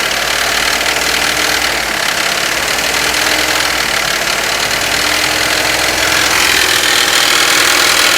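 Mahindra TUV300 three-cylinder diesel engine running with an abnormal knocking noise, which the mechanic places in the top end on the camshaft side and takes for a mechanical fault rather than the injectors. It gets a little louder about six seconds in.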